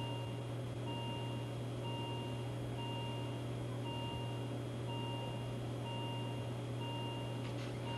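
Simulated bedside patient monitor alarm beeping about once a second, each beep short and steady in pitch, over a constant low hum. The monitor's readings are blank, showing no sensor attached.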